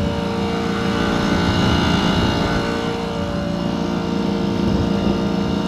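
A Tophat 25 sailing yacht's engine running steadily under way, motoring at an even, unchanging pitch.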